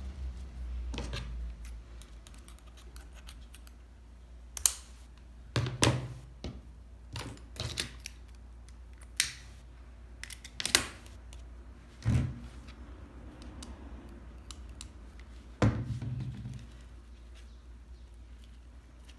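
Hands working a grosgrain ribbon bow on a metal duck-bill hair clip: irregular sharp clicks and taps spread through, with soft rustling of the ribbon between them.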